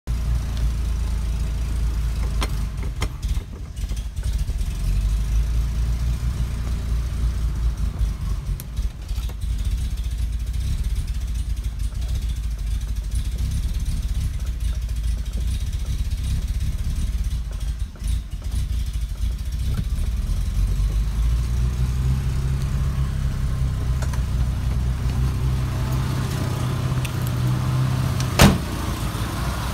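BMW Bavaria's straight-six engine idling, with an idle problem put down to a vacuum leak. The engine note settles into a steadier low hum about two-thirds of the way through, and a single sharp click comes near the end.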